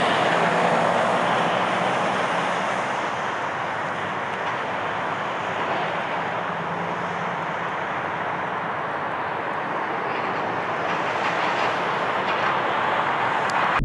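Jet airliner engine noise: a steady rushing sound that eases a little midway and swells again near the end.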